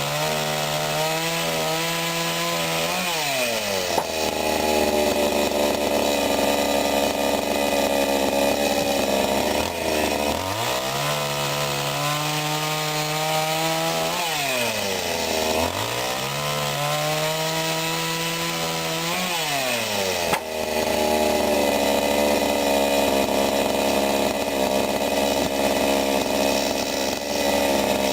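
Sadko GCS 510E two-stroke petrol chainsaw cutting wood. The engine runs at high revs, then its pitch drops and holds lower while the chain works through the wood, and rises again between cuts, several times over.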